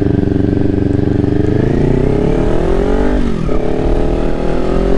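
Kawasaki Ninja 400's parallel-twin engine accelerating. Its pitch holds steady, then climbs, drops sharply at an upshift about three seconds in, and climbs again.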